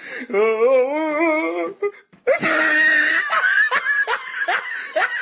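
Meme sound-effect clips of voices: first a long wavering vocal sound, then, after a brief break about two seconds in, a person laughing in quick repeated bursts.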